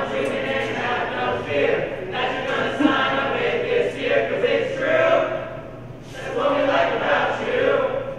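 A mixed group of men and women singing together as a choir, in phrases with a brief break about six seconds in; the singing stops near the end.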